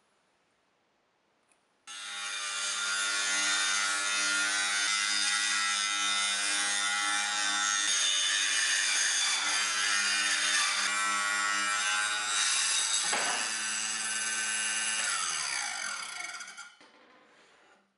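Small benchtop table saw switched on about two seconds in, its blade running steadily while cutting excess off a plywood strip, then switched off near the end and winding down with a falling pitch.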